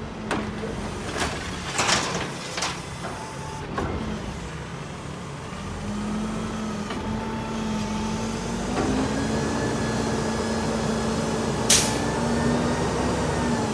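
Mack LEU garbage truck's engine sped up to drive the hydraulics of its Heil automated side-loading arm as the arm lifts, dumps and lowers a cart, with a steady hydraulic whine that steps up in pitch partway through. A few clanks in the first three seconds and one sharp bang near the end.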